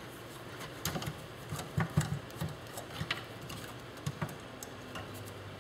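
Irregular light clicks and knocks of metal typewriter parts being handled and worked loose as the typewriter is taken apart by hand, over a steady background hum.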